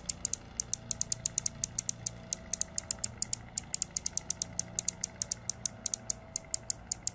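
Male Anna's hummingbird singing from a perch: a fast run of short, very high chips, about eight a second, in phrases broken by brief pauses.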